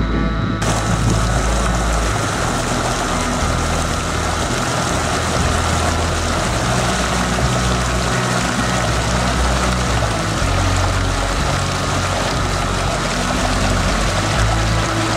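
Creek water rushing steadily over rocks in a small cascade into a pool, starting about half a second in, with background music underneath.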